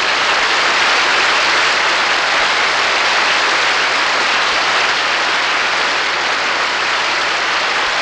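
Audience applauding steadily, a dense even wash of clapping.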